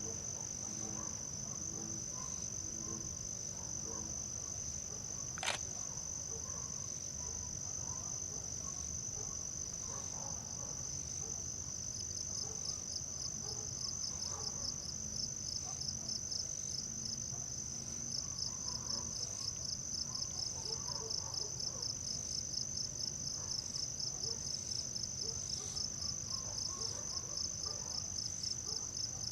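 Insects, crickets, trilling steadily and high-pitched, with a second insect starting in about twelve seconds in with a fast, pulsing chirp of several pulses a second. A single sharp click about five seconds in.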